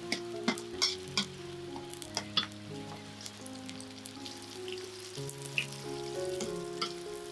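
Food sizzling as it fries in a pan, with a handful of sharp utensil clinks against the pan, most of them in the first couple of seconds. Soft instrumental music with held notes plays underneath.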